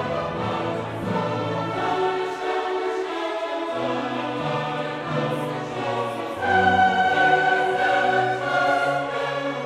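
Choral music: voices holding long, sustained notes, swelling louder about six and a half seconds in.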